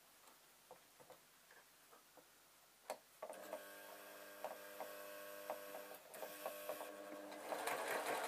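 Electric sewing machine starting to stitch about three seconds in after a few light handling clicks, running with a steady motor whine and regular needle ticks, louder near the end.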